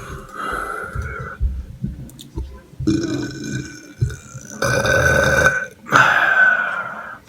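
A person burping: four drawn-out burps in a row, the last two the loudest.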